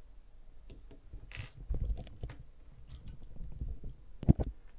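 Handling noise as a blue plastic eight-sided die is rolled onto a wooden tabletop and the camera is swung down to it: low rumbling and rustling with a few light clicks, then a sharp knock a little past four seconds in, the loudest sound.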